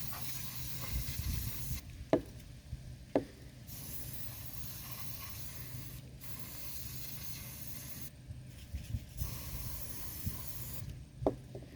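Can of compressed-air electronics duster spraying in hissing blasts a few seconds long, with short pauses between them, as it blows dust out of a mini fridge's vents. A few sharp clicks and a steady low hum run underneath.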